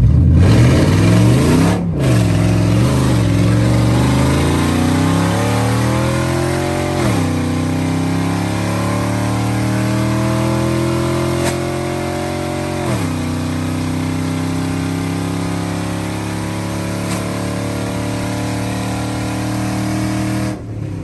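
Pickup truck engine, loud, accelerating through the gears: its pitch climbs and drops back at upshifts about seven and thirteen seconds in, then holds steady at cruise.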